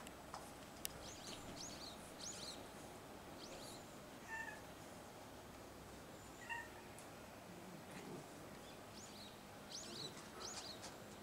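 A domestic cat giving short, high-pitched mews, twice: about four seconds in and again about six and a half seconds in. The mews are faint against a quiet outdoor background.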